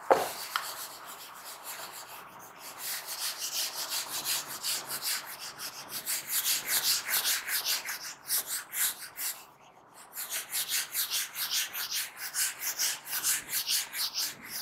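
Whiteboard duster wiping marker off a whiteboard: quick back-and-forth rubbing strokes, about three a second, with a short pause about ten seconds in.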